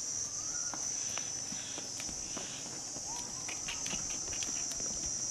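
Steady high-pitched chirring of crickets, with scattered light clicks of footsteps on dirt.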